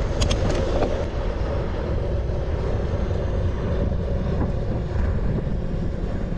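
Wind rushing over the microphone with tyre and road noise from a bicycle being ridden, a steady low rumble with a few light clicks in the first second.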